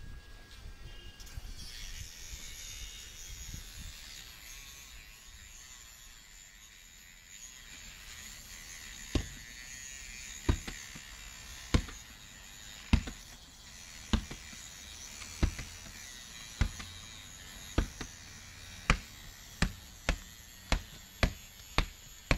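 Small rotary cutting tool grinding through a steel handcuff, a steady high whine. From about nine seconds in it is joined by a run of sharp clicks that come faster and faster toward the end.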